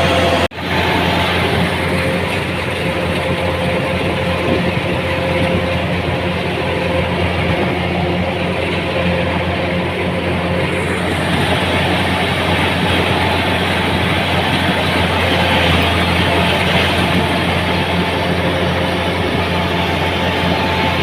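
A machine engine running steadily at a constant speed, with a strong low hum and a brief break about half a second in.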